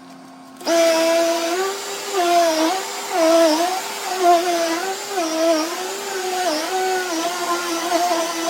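Shark NV360 Navigator upright vacuum cleaner's motor switching on about a second in, then running with a steady hum whose pitch dips and recovers every second or so.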